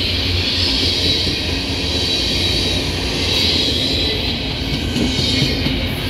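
Freight cars of a passing freight train rolling by close at hand: a steady low rumble of steel wheels on the rails with a high hiss over it.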